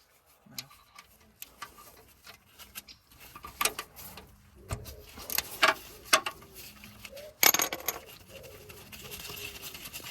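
Scattered metallic clinks and knocks of hand tools on the front hub as the ABS sensor is unbolted and pulled out, the loudest knock about three-quarters through.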